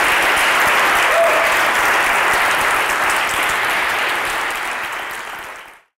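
Audience applauding steadily, thinning out over the last couple of seconds and then cutting off suddenly.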